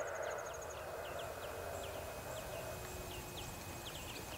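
Birds chirping: many short, quick downward-sweeping chirps, several a second, over a faint steady background rumble.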